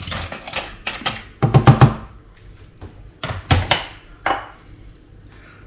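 Wooden spoon stirring pipis (cockles) in a stainless steel saucepan and knocking against the pan. There is a quick run of about four knocks a second and a half in, another cluster around three and a half seconds, and a last knock shortly after.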